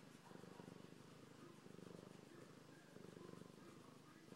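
Tabby cat purring faintly and close up, the purr swelling and fading with each breath about every second and a half.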